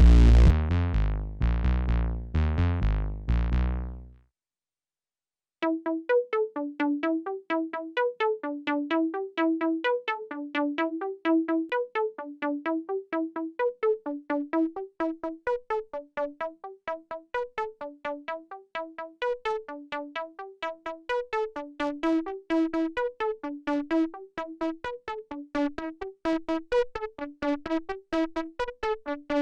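Bass synth overdriven through a Gamechanger Audio Plasma Pedal plays its last few heavy, distorted notes, which die away about four seconds in. After a second or so of silence, a lead synth starts a fast repeating pattern of short plucked notes that keeps going.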